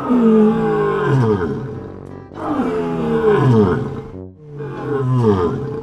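Lion roaring three times in a row, each roar a long call that falls in pitch, over light background music.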